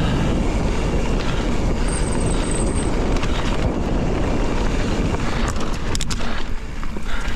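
Wind rushing over the microphone of a handlebar-mounted camera, mixed with mountain bike tyres rolling over a loose gravel dirt trail, with a few sharp rattles around six seconds in.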